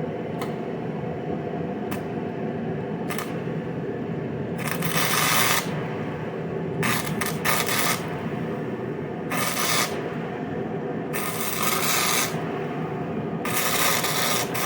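Wire-feed welder striking an arc in five separate bursts of crackling hiss, each about a second long. It is welding onto a broken bolt stub in an engine block so the bolt can be gripped and backed out. A steady low hum runs underneath, with a few faint clicks before the first burst.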